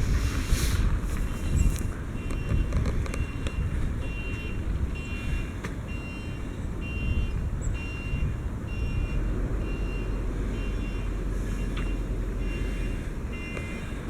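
Strong wind buffeting the microphone, heard as a heavy uneven rumble that becomes deeper and steadier after about nine seconds. Through it come short high-pitched tones, repeating irregularly about twice a second.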